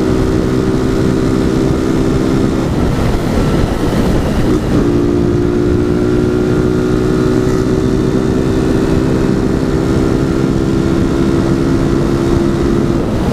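Exhaust note of a tuned, carbureted Honda Titan 150 single-cylinder four-stroke through an aftermarket G-Moto single-baffle muffler, running without an air filter while being ridden. The note holds steady, breaks up for a couple of seconds about three seconds in, then settles back into a steady drone.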